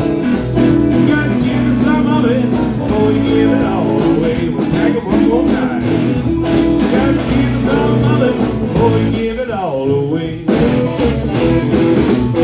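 Live blues-rock band playing an instrumental passage: electric guitar over bass and drums, with a downward sliding guitar line and a short break about ten seconds in.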